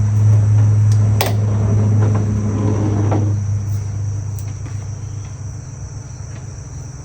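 A loud, steady low hum with a thin high whine above it, fading away over the last few seconds, and a sharp click about a second in.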